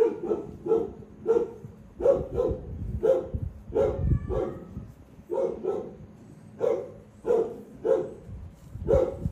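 A dog barking repeatedly, about fifteen short barks, some in quick pairs.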